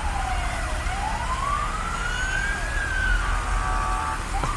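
Emergency-vehicle siren wailing, its pitch sweeping slowly down, then up and down again. A steady horn-like tone sounds for about a second, and near the end the siren switches to a fast yelp.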